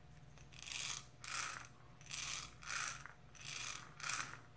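Copper BBs rattling in a clear plastic funnel pushed into a tennis ball, shaken in short bursts about twice a second to keep the shot feeding through the spout into the ball.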